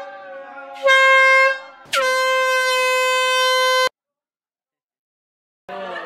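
Handheld air horn blasting: a short blast about a second in, then a long blast of about two seconds that cuts off suddenly, sounded at the end of a New Year countdown.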